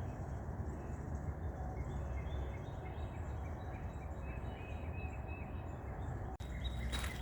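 Outdoor ambience: a steady low rumble with a quick series of faint bird chirps about two to three seconds in.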